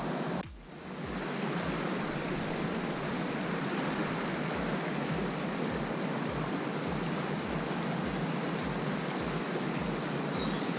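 Shallow river running over stones: a steady rush of water. The sound briefly drops away about half a second in.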